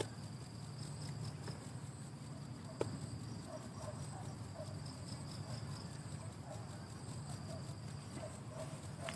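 Insects chirring steadily in several high, fast-pulsing tones, with soft short low notes repeating throughout and a single sharp click about three seconds in.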